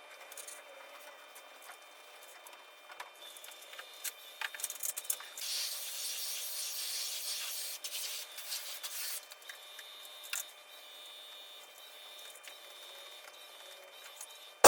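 Faint rubbing and scraping with scattered clicks, and a steady hissing rasp from about five to nine seconds in.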